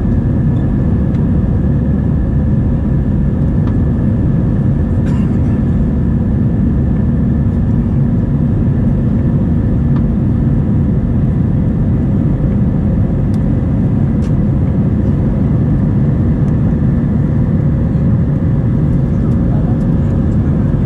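Cabin noise of an Airbus A320 climbing out, heard from a window seat over the wing: a steady drone from its two CFM56-5 engines at climb thrust and rushing air, with a few steady hums running through it.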